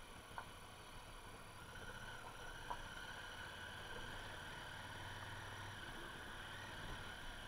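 Honda Africa Twin motorcycle engine running steadily on a gravel track, heard faintly through the onboard camera's housing, with a couple of sharp clicks from stones or rattle.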